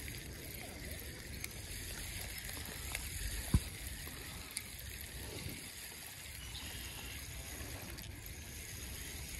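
Spinning reel being cranked to bring in a hooked crappie: faint steady handling noise, with one sharp knock about three and a half seconds in.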